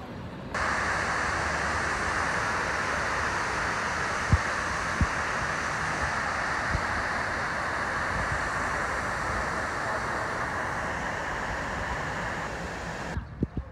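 Steady rushing of water pouring down the walls of the 9/11 Memorial's reflecting-pool waterfall. It starts abruptly and cuts off near the end, with two brief knocks about four and five seconds in.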